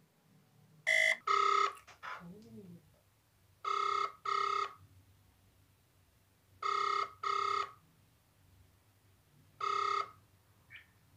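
Ringback tone of an outgoing phone call, played through the phone's loudspeaker. A short tone comes first, then double rings repeat about every three seconds: the called phone is ringing.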